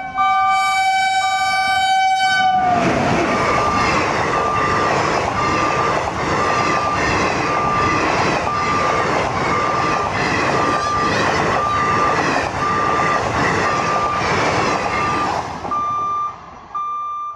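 An Indian Railways express train sounds a long horn, whose pitch drops as the locomotive passes, then its coaches rush by at speed with a steady clatter of wheels over the rail joints. A level-crossing warning beeper sounds about twice a second.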